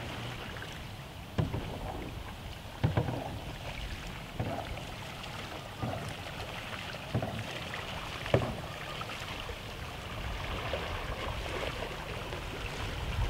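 Slalom kayak paddle strokes, the blade catching flat water with a sharp splash about every second and a half, over a steady background hiss.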